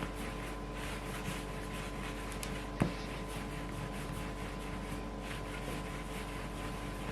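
Faint handling of bread dough on a work surface over a steady electrical hum and hiss, with one light knock a little under three seconds in.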